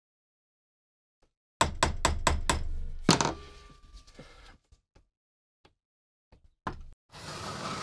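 Hammer tapping the end of a screwdriver seated in a rusted, stuck screw on an old steel bayonet socket, to shock it loose: about five quick taps at roughly four a second, then a harder blow that leaves the metal ringing briefly. A few light clicks follow, and near the end a second and a half of rough, noisy rasping.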